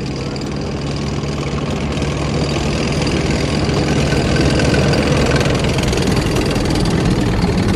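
Heavy tank-style engine running steadily with a low rumble, growing slightly louder, then cutting off suddenly: a vehicle engine sound effect laid over the toy tank.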